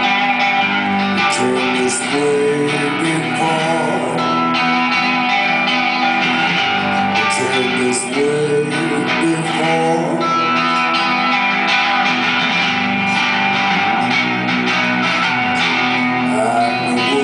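Live music: an instrumental passage of the song, with no singing.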